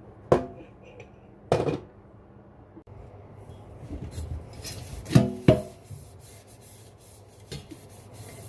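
Sponge scrubbing cleaning paste over a metal teapot, a rough rubbing sound, with a few knocks of the pot that ring briefly. The loudest is a pair of knocks about five seconds in.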